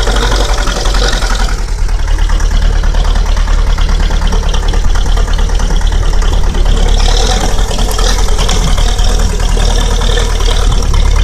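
Zetor tractor's diesel engine running steadily, still cold just after a hard start at −23 °C.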